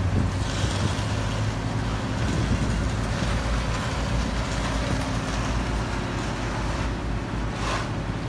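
Fire truck's diesel engine running steadily, a low drone, with a brief hiss near the end.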